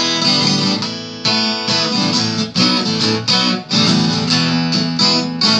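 Acoustic guitar being strummed, chords ringing on between the strokes.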